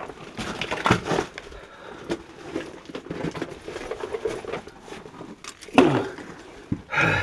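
Irregular scraping, knocking and rustling of people moving about on rock inside a lava tube cave, with a louder knock about a second in and another just before six seconds.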